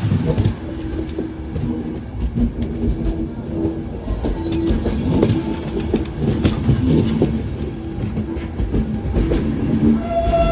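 Train running on the rails: a steady low rumble with wheels clicking over rail joints and a hum that comes and goes.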